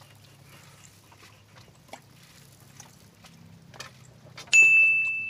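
A single bright bell-like ding about four and a half seconds in, ringing on and fading away, over a faint low hum.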